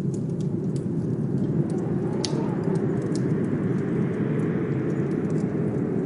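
Steady low rush of blizzard wind layered with a crackling fireplace: small sharp pops several times a second, with one louder pop a little over two seconds in.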